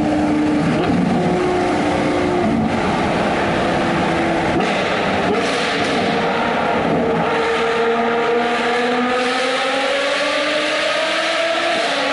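Ferrari 812 Superfast's 6.5-litre V12 with a Novitec exhaust, heard from inside the cabin in a tunnel, running hard under acceleration; its note climbs steadily in pitch over the last few seconds.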